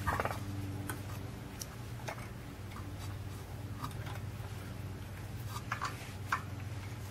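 Scattered light metallic clicks and taps as a carburetor is worked off the intake manifold of a cast iron Briggs & Stratton engine, over a steady low hum.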